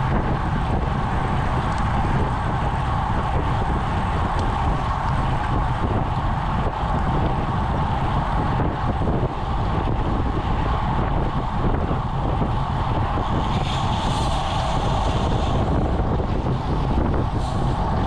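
Steady wind noise on a road bike's action-camera microphone riding at about 24 mph, mixed with tyre and road noise.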